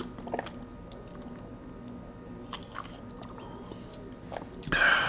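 A man chewing a mouthful of salmon and rice, with small wet clicks and smacks of the mouth, and a louder mouth noise near the end.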